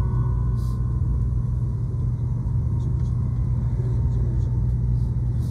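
Steady low rumble of a Tokaido Shinkansen train running, heard inside the passenger cabin. The last note of the onboard chime melody fades out in the first second.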